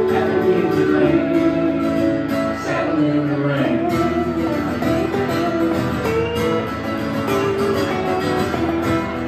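Live band playing a country-folk song: electric guitar and strummed acoustic guitar together, steady and full.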